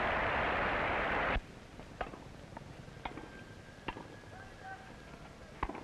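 Crowd applauding, cut off abruptly after about a second and a half, then a tennis rally: sharp racket-on-ball hits, four of them, about a second apart, from 1930s newsreel sound.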